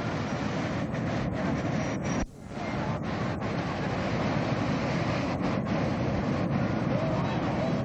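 Wind noise on the camcorder microphone over breaking surf, a steady rush with a brief drop-out about two seconds in.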